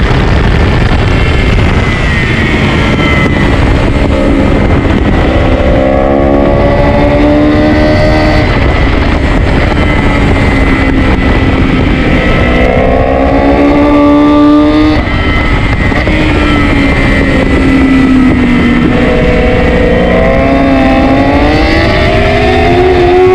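Sport motorcycle engine at racing speed, its pitch climbing several times as it accelerates hard and dropping on the gear changes and under braking, under loud wind rush on the microphone.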